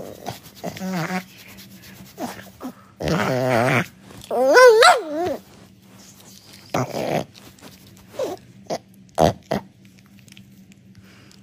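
French bulldog grumbling and whining, with two longer moans that waver up and down in pitch a few seconds in, then a few short grunts.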